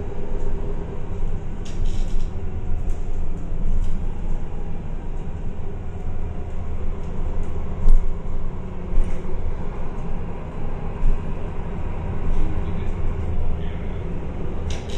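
MAN A22 city bus running, heard from on board: a steady low engine and road rumble with scattered small rattles and clicks.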